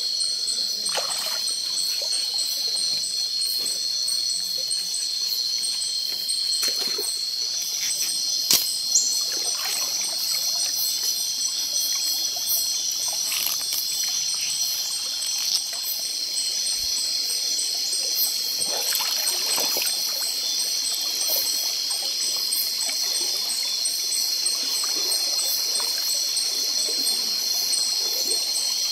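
Water trickling and splashing lightly, with a sharper splash or knock now and then, under a steady high-pitched drone of insects.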